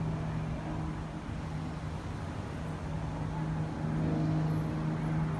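Cessna 402C's twin turbocharged six-cylinder piston engines droning in the climb after takeoff: a steady low hum, slightly louder around four seconds in.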